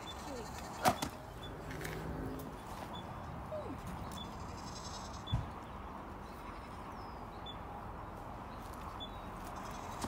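Steady outdoor background noise with a faint animal call, like a bleat, about two seconds in, a sharp click near the start and a soft low thump about halfway through.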